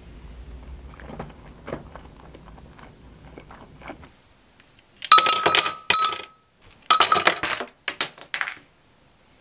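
Ice cubes clattering into a glass mug in several loud bursts over about three seconds, one with a brief glassy ring, after a few soft clinks of cutlery on a pasta bowl.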